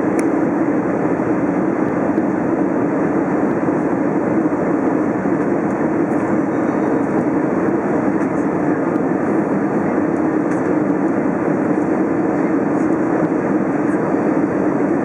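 Airbus A320 cabin noise: a steady, loud roar of engines and airflow with a low drone running under it, unchanging throughout.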